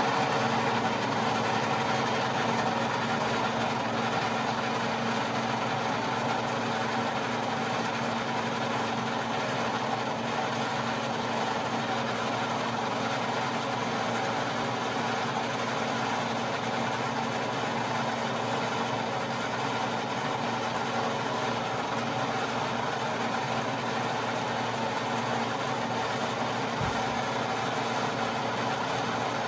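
Metal-working lathe running steadily with a constant hum, its chuck spinning a nylon bar while a 3/4-inch drill bit in the tailstock bores into the end of it.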